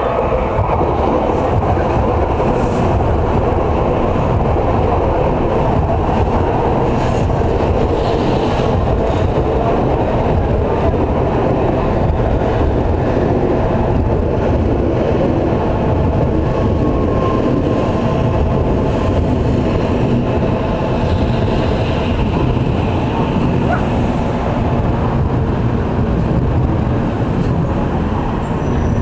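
JR Central N700-series Shinkansen pulling in to stop at a platform, its cars passing close by with a steady rumble of wheels on rail. A faint high-pitched squeal comes in near the end.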